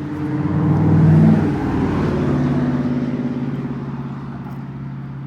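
A car engine running, swelling to a peak about a second in and then fading slowly, its pitch shifting as it goes. A steady low hum runs underneath.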